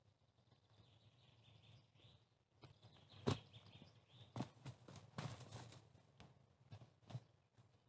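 Soft scuffs, knocks and crumbling of loose sandy soil, with clothing rustle, as a man climbs out of a freshly dug pit; the knocks come scattered, the clearest about three seconds in and a run of them in the middle. Faint bird calls sit in the background.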